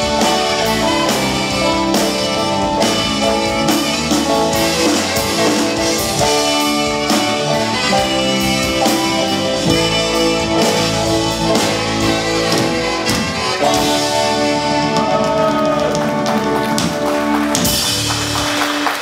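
Live band playing an instrumental passage: saxophones and electric guitar over keyboard, bass and a drum kit keeping a steady beat, with no singing.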